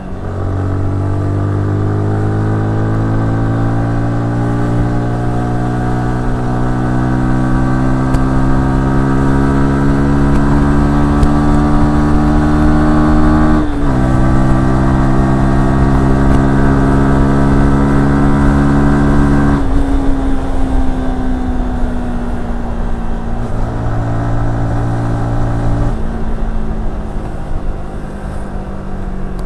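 Yamaha R15S 155cc single-cylinder engine pulling up through the revs under acceleration, with a sharp drop in pitch at an upshift about 14 seconds in. After a second climb the revs drop near 20 seconds and slide down as the throttle eases off, then hold lower to the end.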